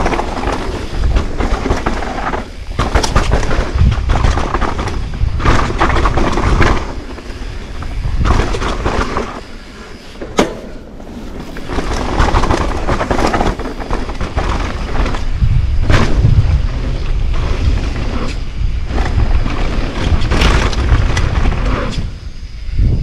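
Wind buffeting the camera's microphone during a fast mountain-bike descent, with tyre noise on packed dirt and knocks and rattles from the bike over jumps and berms. It eases off briefly about halfway through, where a single sharp click stands out.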